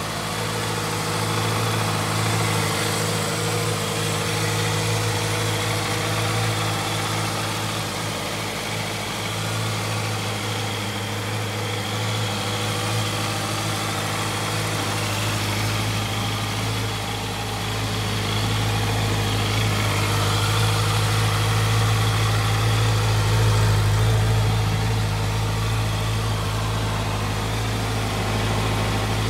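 Honda CB650F's inline-four engine idling steadily.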